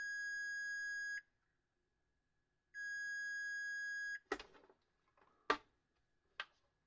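Capacitor Wizard ESR meter beeping: two steady high-pitched beeps, each about a second and a half long, as its probes touch a capacitor under test; the freshly repaired meter is responding again. A few sharp clicks follow in the second half.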